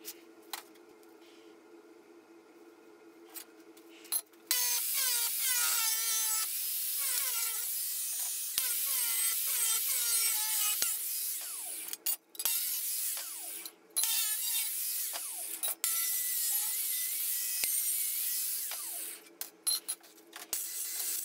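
Bosch angle grinder with a thin cut-off disc cutting through thin sheet metal. It starts about four seconds in and runs loud and high-pitched, with a few short breaks. It stops near the end, and a few clicks and clatter follow as the grinder and the cut pieces are set down.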